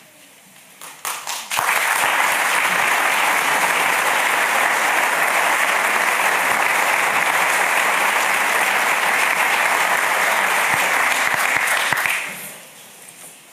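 Audience applauding: a few scattered claps, then full applause from about a second and a half in, holding steady and dying away near the end.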